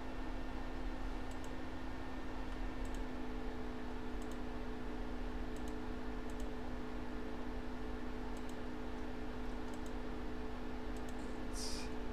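Computer mouse clicks, about one every second and a half, each re-running an online list randomizer, over a steady hum; a short hiss near the end.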